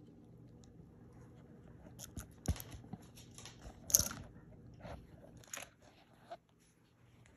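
A dog crunching and chewing on something hard: a few irregular sharp crunches, the loudest about four seconds in, over a faint steady hum.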